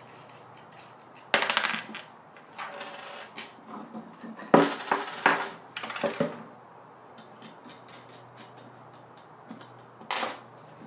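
Pine boards of a bolted wooden leg frame being handled and taken apart on a wooden table: knocks and clatter of wood on wood with the clink of loose metal bolts, nuts and washers. They come in irregular bursts over the first six seconds, then a quiet stretch, then one more burst near the end.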